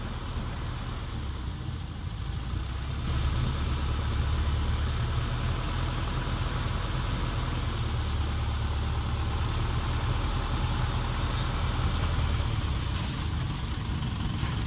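Motorboat engine running steadily at speed, with water rushing and splashing along the hull; it grows louder about three seconds in.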